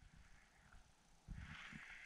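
Near silence, with a few faint low thumps in the second half.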